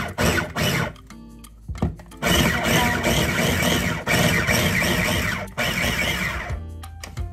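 Black & Decker Handy Chopper Plus electric mini food chopper chopping onions and bell peppers: pulsed rapidly, about three short bursts a second, then after a short pause run in longer stretches of a few seconds, stopping shortly before the end. Background music underneath.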